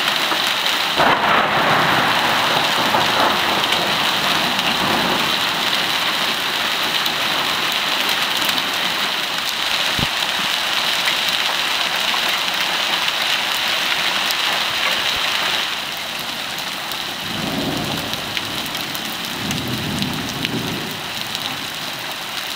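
Hail mixed with rain pelting pavement, cars and ground: a dense, steady clatter of small impacts. It eases a little about two-thirds of the way through, and low rumbles come in near the end.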